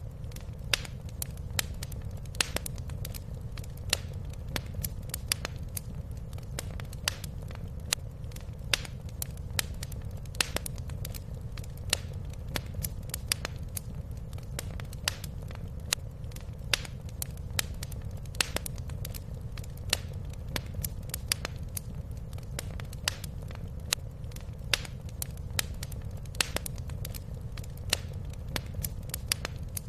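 Wood fire crackling in a fireplace: frequent sharp, irregular pops and snaps over a steady low rumble of the burning fire.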